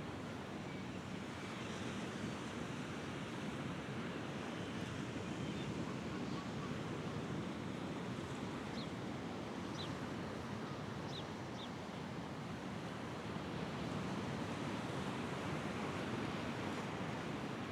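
Mediterranean sea waves washing on the shore, a steady rushing with slow swells, and a few faint high chirps near the middle.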